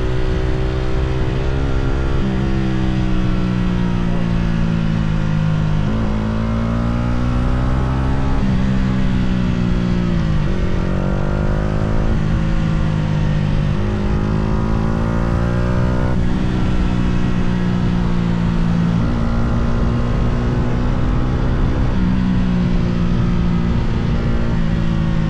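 Yamaha R125's single-cylinder 125cc four-stroke engine accelerating hard: its pitch climbs through each gear and drops sharply at each upshift, several times over, then holds fairly steady toward the end.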